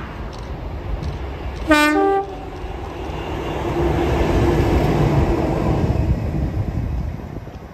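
A Class 50 diesel locomotive sounds its two-tone horn once, a short low note then a higher one. It then runs past with a second locomotive coupled behind, English Electric diesel engine noise with a steady hum building to a peak and fading away near the end.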